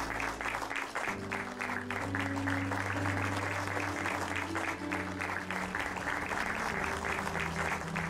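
An audience applauding over background music with sustained low notes.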